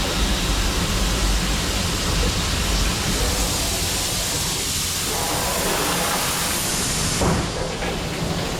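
Mori Seiki NT5400/1800SZ CNC turning center running: a steady rushing hiss over a low hum, which cuts off suddenly with a knock about seven seconds in.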